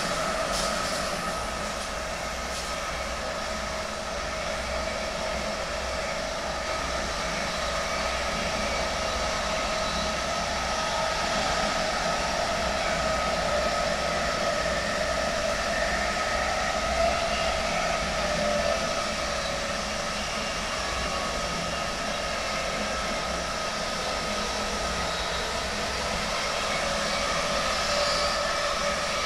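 DB Class 101 electric locomotive heard from the coach behind it while running: the whine of its ABB Micas-S GTO traction inverter over the steady rumble of wheels on rail. The whine holds a near-steady pitch, wavering slightly about halfway through.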